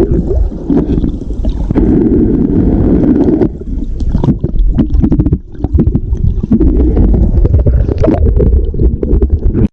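Muffled water sloshing and bubbling, heard by a camera held underwater or at the waterline, with many small crackles. It cuts off suddenly at the end.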